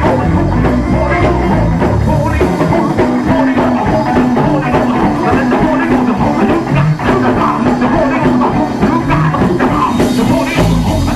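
Live gospel church band playing loud, driving praise-and-worship music: a drum kit keeps a steady beat, with guitar and sustained bass notes underneath.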